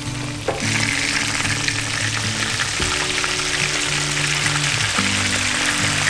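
Onions and garlic sizzling in butter in a hot pan; about half a second in the sizzle jumps louder and stays high as white wine is poured in to deglaze. Background music plays underneath.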